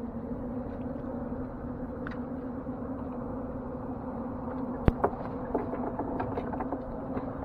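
Small outboard motor running at a steady idle, a low even hum. About five seconds in come two sharp knocks close together, then a few lighter ticks.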